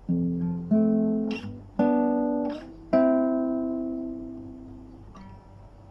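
Guitar chords strummed one after another, four in about three seconds, the last left ringing and slowly fading, then a soft fifth chord near the end: the opening of a traditional Sudanese song.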